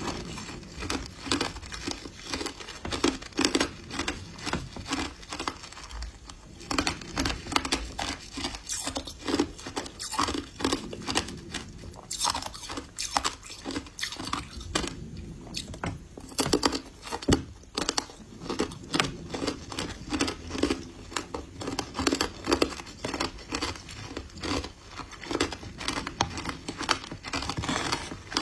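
Ice coated in matcha powder being bitten and chewed close to the microphone, a continuous run of sharp crunches several times a second.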